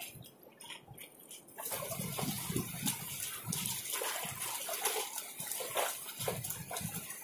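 Small waves sloshing and lapping against a steel ship hull in uneven surges, starting after a quieter second or so.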